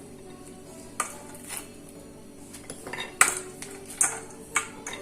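Serving utensils clinking and knocking against dishes as food is served onto a plate: a handful of separate sharp clinks, the loudest a little after three seconds in.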